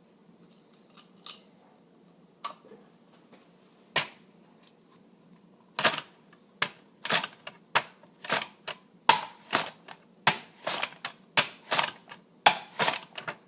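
A potato being sliced on a mandolin slicer: a few scattered strokes at first, then from about six seconds in a steady run of sharp slicing strokes, about two a second.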